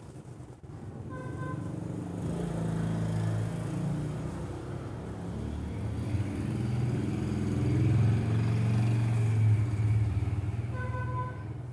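A motor vehicle's engine rumbling, swelling louder through the middle and easing off near the end, with a short beep about a second in and again near the end.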